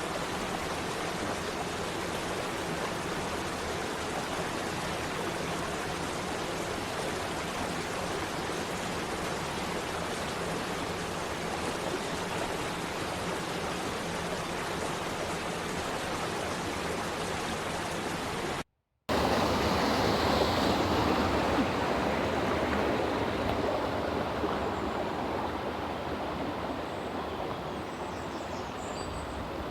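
Water rushing steadily over a small waterfall. About two-thirds in the sound cuts out for a moment and comes back somewhat louder, and a few faint high chirps come in near the end.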